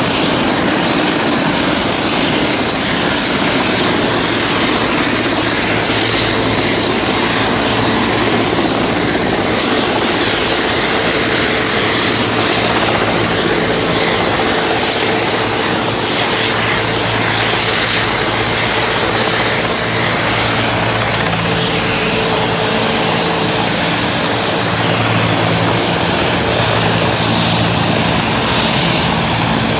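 Mil Mi-8-family transport helicopter hovering and descending to land. Its rotor and turbine noise is loud and steady, with a constant low hum underneath.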